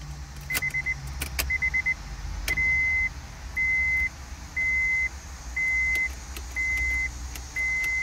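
Car's dashboard warning chime beeping: two quick runs of short beeps, then steady half-second beeps about once a second. Sharp clicks come from the key being worked in a new Honda Prelude ignition lock. The engine does not start, since the immobilizer does not accept the new key.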